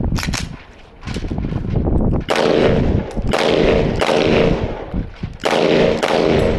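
Gunfire: sharp shots near the start, then two long stretches of dense, rapid firing, the first from about two and a half seconds in, the second from about five and a half seconds in.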